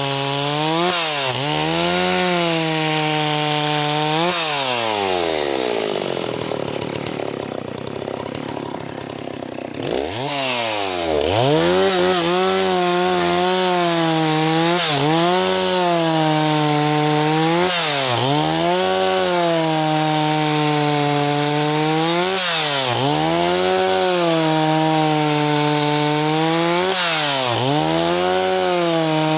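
Stihl 038 two-stroke chainsaw running at high revs, its pitch dipping and recovering every couple of seconds. About four seconds in it slows right down for several seconds, then revs back up at about ten seconds and carries on with the same repeated dips.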